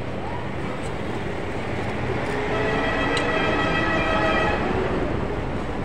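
Street traffic noise, steady throughout, with a long vehicle horn sounding from about two seconds in for roughly two and a half seconds.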